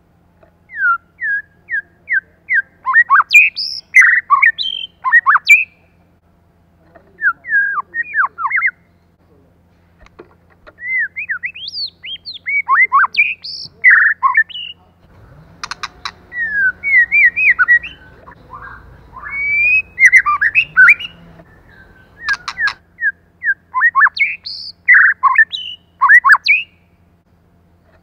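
White-rumped shama singing: bursts of quick whistled notes that sweep up and down, broken by short pauses, with a few sharp clicks around the middle.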